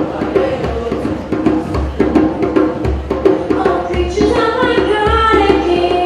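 Djembe hand drumming in a steady pattern: a deep bass stroke about once a second under quicker sharp slaps. About four seconds in, voices start singing over the drum.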